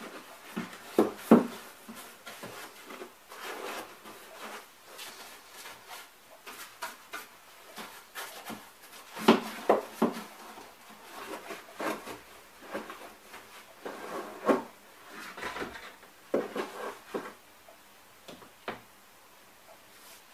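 Painting a cardboard cabinet: a small paint roller rubbing over cardboard and a plastic paint tray knocking against it, heard as irregular soft knocks and scrapes. The loudest knocks come about a second in and again around nine to ten seconds.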